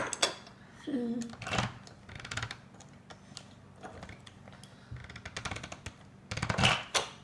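Plastic Play-Doh playset pieces being pressed and handled on a wooden table: a string of irregular clicks and knocks, with a louder clatter near the end.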